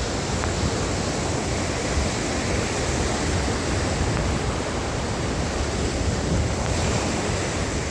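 Sea waves breaking and washing onto the beach in a steady surf noise, with wind rumbling on the microphone.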